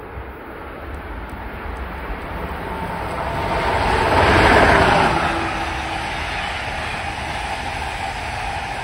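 An Amtrak Siemens ACS-64 electric locomotive passes at speed, hauling Amfleet passenger coaches. The noise builds as it approaches, peaks as the locomotive goes by about four to five seconds in, then settles into the steady roar of the coaches' wheels on the rails, with a faint steady whine.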